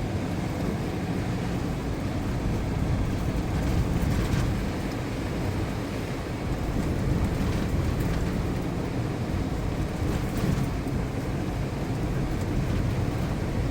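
Car driving: steady engine and tyre road noise, a low rumble.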